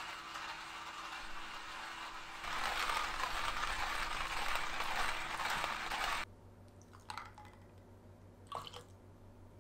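Stainless-steel hand coffee grinder being cranked, its burrs crunching through coffee beans in a dense, steady grinding that gets louder partway through and cuts off abruptly about six seconds in. After that come a couple of faint, short clinks.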